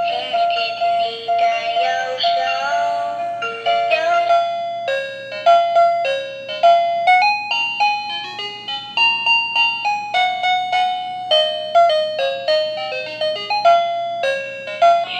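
Electronic toy bus playing a song through its built-in speaker. A synthesized voice sings for the first few seconds, then a melody of short electronic notes follows.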